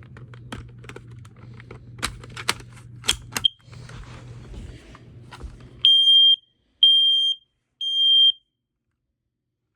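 Kidde i9070 ionization smoke alarm being handled with a few clicks and knocks, then its piezo horn sounding three loud, steady high beeps about a second apart in the temporal-three alarm pattern, showing the unit works on test.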